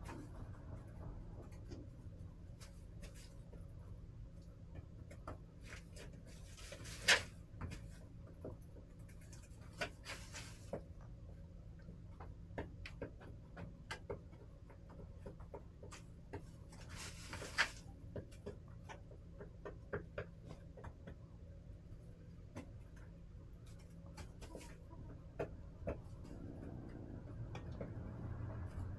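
Backyard hens pecking and scratching in a coop: scattered light ticks and taps, with a few louder rustling scrapes about seven, ten and seventeen seconds in.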